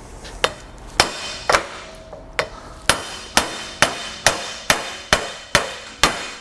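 Hammer blows on a steel socket set against a universal-joint bearing cup: about a dozen strikes, roughly two a second, each with a short metallic ring. The blows drive the cup out through the yoke of a 2006 Chevrolet Silverado Duramax rear driveshaft to remove a failed U-joint with destroyed, rusted bearings.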